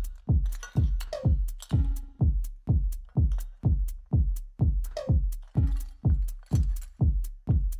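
Background electronic music with a deep kick drum beating a little over twice a second and light hi-hats, no vocals.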